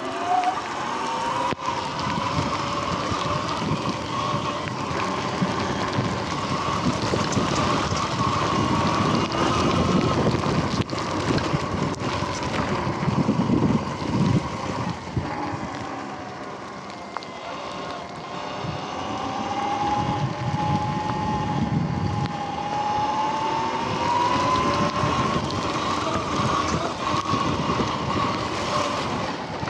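Sur-Ron X electric dirt bike's motor whining under way, its pitch rising and falling with speed, dropping about halfway through and climbing again later. Wind noise on the microphone and rumbling from the tyres on rough ground run beneath it.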